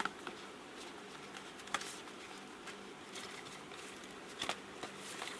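Rustling and scattered light clicks of a smartphone's retail box and packaging being handled while the bundled phone case is taken out, over a faint steady hum.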